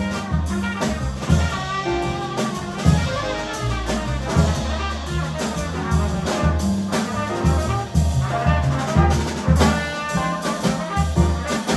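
Jazz quartet playing: trumpet carrying the melody over double bass, drum kit and piano.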